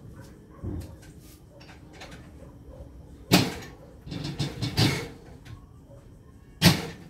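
A series of sharp knocks and clatters from things being handled. There is a light knock about a second in, a loud knock about three seconds in, then a run of clattering knocks, and another loud knock near the end.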